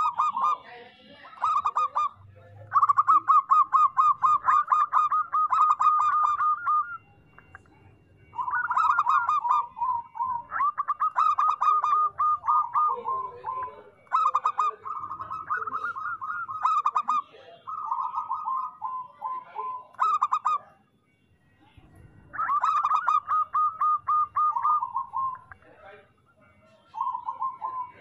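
Zebra dove (perkutut) singing: about nine bouts of fast, staccato cooing notes, each bout one to four seconds long and often dropping a little in pitch at its end, with short pauses between.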